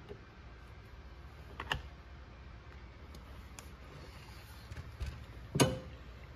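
A few light clicks and ticks of a chainsaw and its parts being handled, then a single heavier knock a little over five seconds in as the saw body is set down on its side on a wooden workbench.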